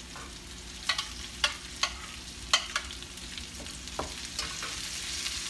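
Garlic, ginger and onions sizzling in a skillet over medium heat, with metal tongs stirring them and clicking sharply against the pan about half a dozen times.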